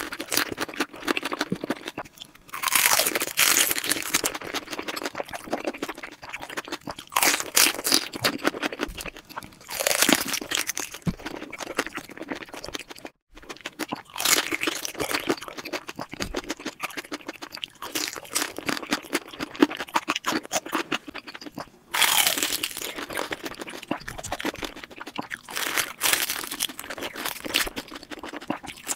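Close-miked crunchy biting and chewing of crispy fried rolls, the crisp coating crackling in repeated louder bouts. The audio is sped up to double speed.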